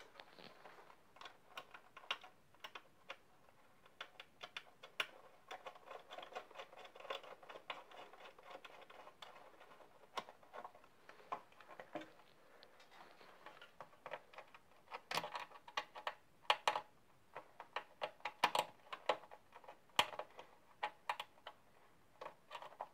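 Scattered light clicks, taps and scraping as a moped's leg-shield panel is handled and worked into place against the frame.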